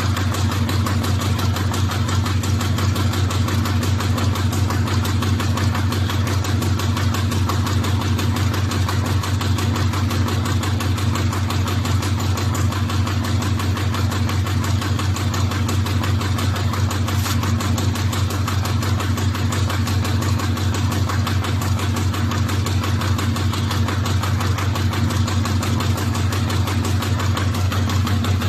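RZJD G350J flat-bottom paper bag machine running steadily at its top speed of about 120 metres per minute: a steady low hum under a rapid, even mechanical rhythm.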